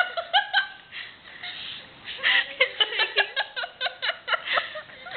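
Women giggling and laughing. A short burst comes near the start, and a longer run of quick, repeated laughs begins about two seconds in.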